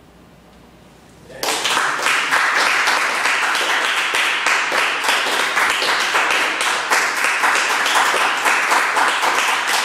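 Audience applauding, starting suddenly about a second and a half in after a short lull and going on steadily.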